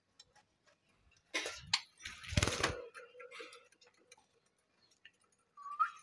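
Budgerigars in a wire cage: scattered light clicks and taps, two louder rustling noises about one and a half and two and a half seconds in, and a short rising budgie chirp near the end.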